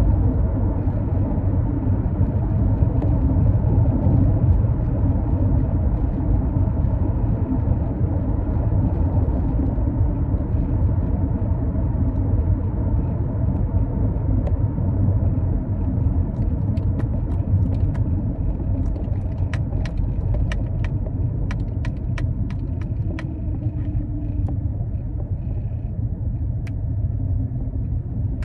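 Cabin noise of a moving 2012 Toyota RAV4: a steady low road and engine rumble. A run of light clicks comes in over the second half.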